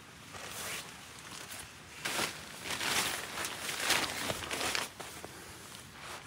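Rustling and crinkling of a synthetic groundsheet being unfolded and spread out inside a tent, in irregular bursts that are loudest through the middle.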